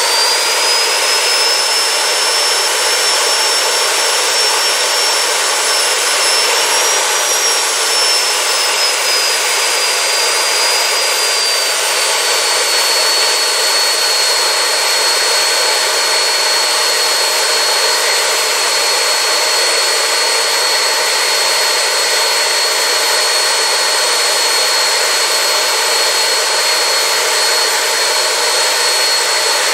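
Homemade jet engine running steadily and loud, with a high whine over a dense rushing noise. The whine wavers a little in pitch, then settles slightly lower after about twelve seconds and holds there.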